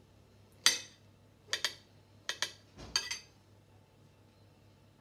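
Kitchen knife cutting mushroom pieces on a plate: the blade clinks against the plate about six times, in sharp single and paired strokes over the first three seconds, then stops.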